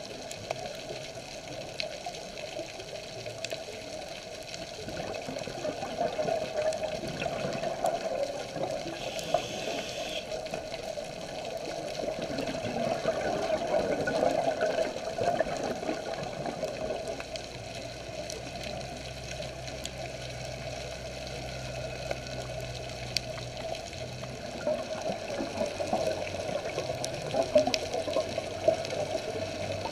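Muffled underwater water noise picked up by a camera in its underwater housing, swelling and easing, with a low steady hum for several seconds past the middle.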